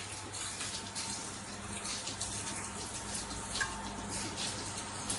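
Water running as from a tap, with small scrapes and clicks over it as water chestnuts are peeled and rinsed.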